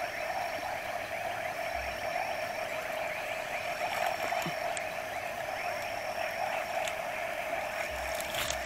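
Steady chorus of many frogs calling at the pond at night, a dense overlapping trilling. A thin high tone comes and goes about every two seconds above it.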